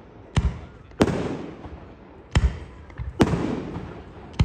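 Aerial fireworks going off: about five sharp bangs, unevenly spaced, the bigger ones trailing a long rumble that fades over a second or more.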